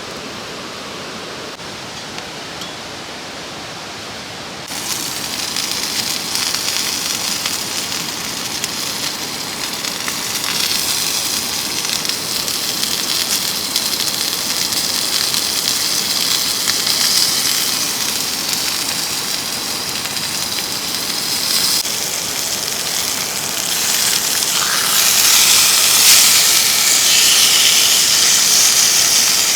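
A mountain stream rushes steadily, then about five seconds in food starts sizzling and frying in a pan, a bright, steady hiss that grows louder near the end.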